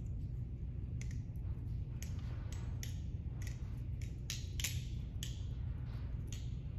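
A Vulp balisong trainer being flipped: about a dozen sharp metallic clicks at an uneven pace as the handles swing around and clack shut against the blade, over a steady low hum.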